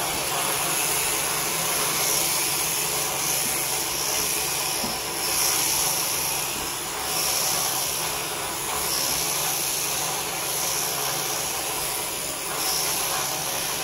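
Electric sheep shears running steadily as they cut through a sheep's fleece, a hissing buzz that swells and eases every second or two.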